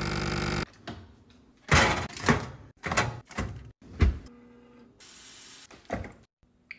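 A vacuum sealer's pump buzzes and cuts off under a second in. Then come a series of clunks and thuds from built-in kitchen appliance doors and a drawer being opened and shut, with a short steady hum midway.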